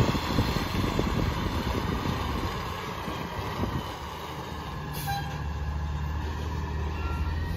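Mack MRU rear-loader garbage truck's engine running as the truck moves slowly, with a rough low rumble. A short hiss of air comes about five seconds in, and after it the engine settles into a steady low hum.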